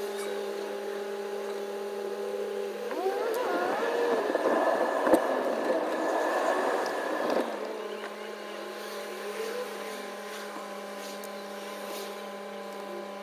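Steady hum of a car's interior on the move. For about four seconds in the middle it grows louder and rougher as traffic passes alongside, then drops back suddenly.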